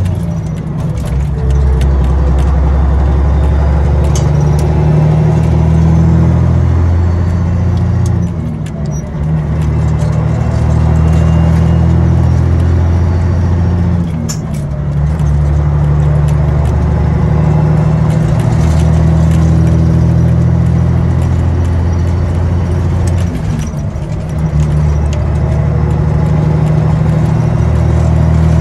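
Caterpillar 3406B inline-six diesel engine of a semi truck running under way, heard from inside the cab as a loud, steady low hum. The engine note drops briefly and comes back at a new pitch about four times, with light clicking rattles in the cab.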